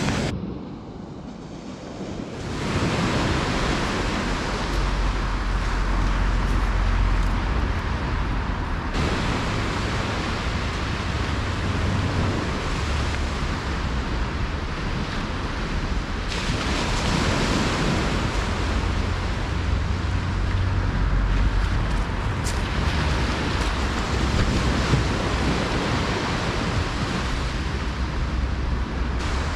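Wind buffeting the microphone over small waves washing onto a sandy beach: a steady rushing noise with a heavy low rumble, which changes abruptly in strength a few times.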